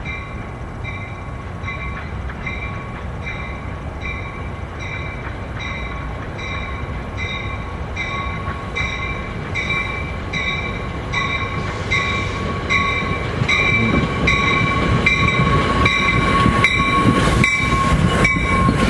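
A bell rings steadily about twice a second while a train approaches, its low rumble growing louder over the last third.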